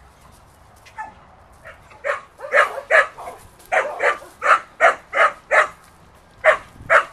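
A dog barking repeatedly, about ten sharp barks two to three a second, starting about two seconds in with a short pause near the end.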